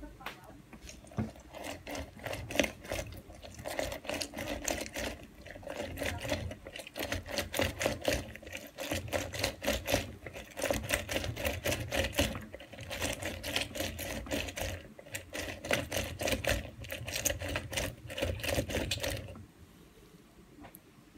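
Lemon halves twisted hard on a plastic hand reamer juicer: a rapid, rhythmic scraping of rind and pulp against the ridged cone, with wet squelching as the juice comes out. It stops near the end.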